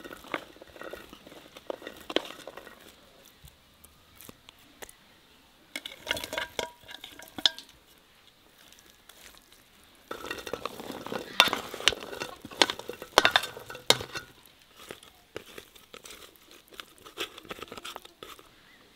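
Metal spoon scraping and clinking against an enamel plate while food is spooned and pushed onto rice, in several short bursts with quiet gaps; the busiest and loudest stretch comes about ten to fourteen seconds in.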